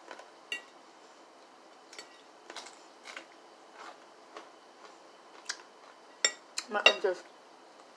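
Metal fork clicking and scraping against a ceramic plate while scooping macaroni and cheese, in scattered light clicks. The loudest clicks come in a quick cluster near the end.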